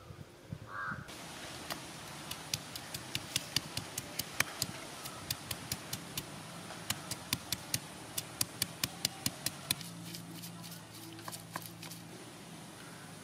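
Stone roller knocking and grinding on a flat stone grinding slab as ingredients are crushed into a paste: a run of sharp stone-on-stone clicks, about three a second, stopping near the end.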